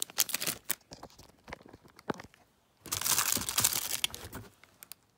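Packaging crinkling and rustling as items are handled and unwrapped: scattered crackles for the first couple of seconds, then a louder burst of crumpling lasting about a second and a half from about three seconds in.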